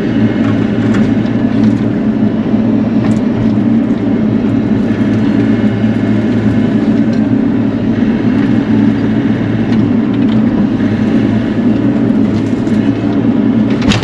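Bobcat E42 mini excavator's diesel engine running steadily under load. A few brief clicks sound over the drone.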